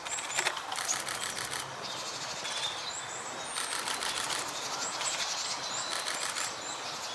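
Outdoor ambience: short bursts of rapid, high-pitched ticking that recur every couple of seconds, with brief, thin, very high bird calls scattered between them.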